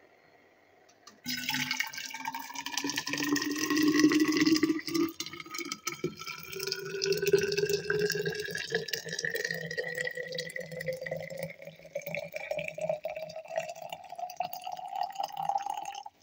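Liquid poured into a stainless steel thermos flask. The pouring starts about a second in, and its pitch rises steadily as the flask fills until the pour stops suddenly near the end.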